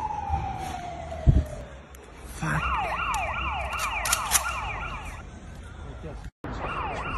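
Electronic alarm siren. First a long falling tone, with a single sharp bang about a second in, then a rapid up-and-down warble repeating about three times a second. It breaks off briefly near the end and starts again.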